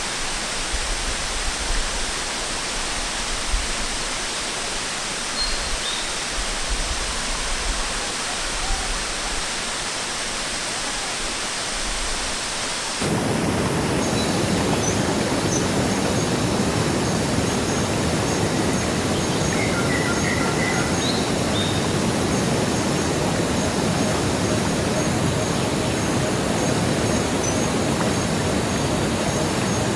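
Steady rush of the Sungai Pandan waterfall's cascading water, with low rumbles in the first part. About halfway through it cuts to a louder, fuller rush, with a few faint high chirps.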